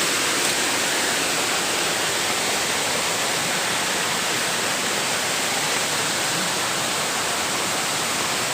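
A waterfall rushing: a steady, dense roar of falling water that does not change.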